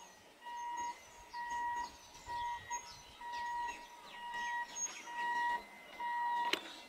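An electronic warning beeper sounding a steady tone about once a second, each beep about half a second long, with birds chirping in between. A sharp click comes near the end.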